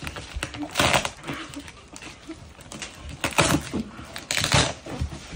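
Duct tape and packing tape being torn and ripped off a heavily wrapped present, in a few short, noisy bursts with rustling of the wrapping between them.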